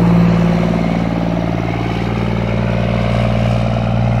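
Diesel engine of a semi truck passing close by and pulling away, a loud, deep steady drone whose pitch dips slightly as the truck goes past.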